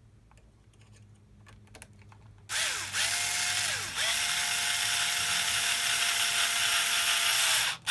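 Motor of a Traxxas 4-Tec 2.0 RC car spinning its drivetrain with a steady gear whine, checking that the freshly fitted aluminium stub-axle carrier turns freely. It starts about two and a half seconds in, drops out briefly about a second later, then runs steady until it cuts off near the end. The drivetrain is found to turn a little tight.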